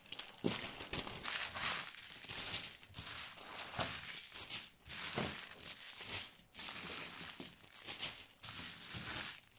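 Small clear plastic packets of diamond-painting drills crinkling and rustling as they are handled and dropped into a plastic sack. The rustling is continuous, with a few brief pauses.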